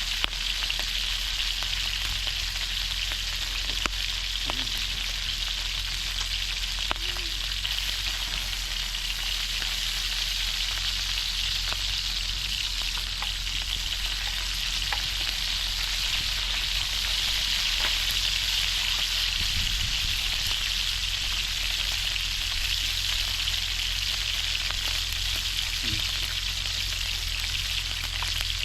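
Slices of pork belly sizzling steadily in hot oil in a pan, with scattered small pops of spitting fat.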